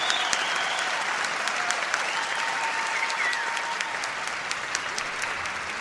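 A crowd applauding steadily: a dense patter of many hand claps, with a few faint voices in it.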